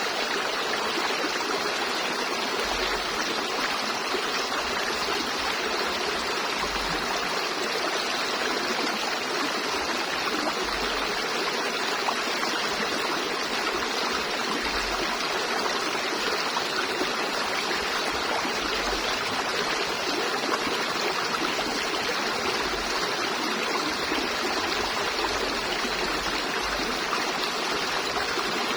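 River water flowing steadily over rocks, a continuous rushing and trickling without let-up.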